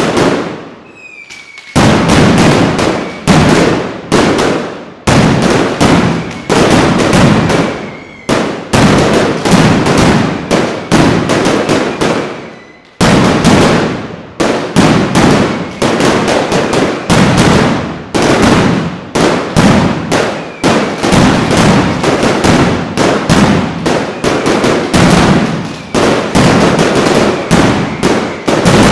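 Mascletà: a dense barrage of firecracker detonations going off in rapid, overlapping succession, pausing briefly about a second in and dipping again near 13 seconds in.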